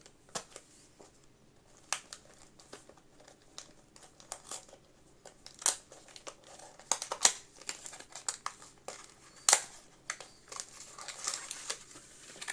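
Packaging of a new M.2 NVMe SSD being opened by hand: irregular crinkling and rustling with scattered sharp clicks and snaps, the loudest about halfway through and again about three-quarters of the way through.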